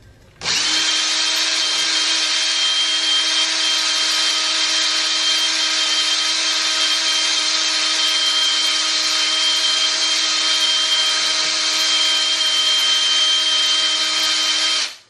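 Electric drill running steadily on its low speed setting, spinning a brass screw loaded with valve grinding compound against a 9mm rifle barrel's muzzle to lap the crown: a steady motor whine over an even hiss. It starts about half a second in and stops just before the end.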